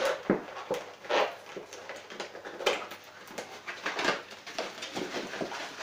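Paper packaging rustling and crinkling in irregular bursts as a boxed item is unwrapped and handled, with a few small clicks and knocks.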